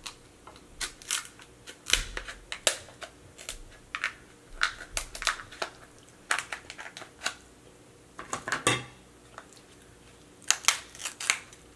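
Crab scissors snipping and cracking through the shell of a cooked king crab leg: a run of irregular sharp crunches and snips, some in quick clusters.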